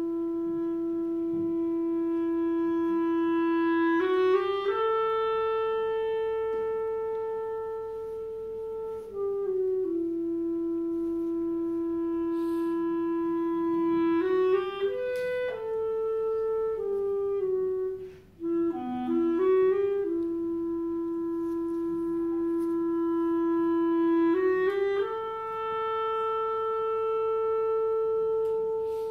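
Solo clarinet playing a slow melody of long held notes, several seconds each, linked by short quick runs of notes.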